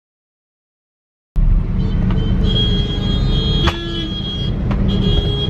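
Silence for about a second, then the steady rumble of a car being driven, recorded from inside the car, with a high steady tone over it and a sharp click partway through.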